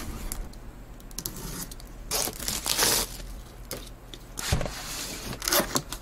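Utility knife slitting packing tape on a cardboard box. The loudest part is a long tearing, scraping rasp about two seconds in. A dull thump comes later as the box is handled, and near the end the cardboard flaps scrape open.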